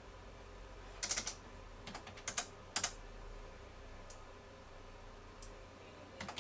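Computer keyboard keystrokes: short runs of key clicks about one, two and three seconds in, as a price is typed into a field, then a few fainter single clicks with pauses between.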